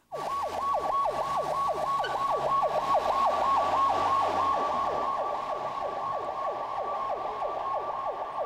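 Ambulance siren wailing in a fast, even yelp: a tone that sweeps down again and again, about four times a second, on a 119 ambulance arriving for a carbon-monoxide casualty.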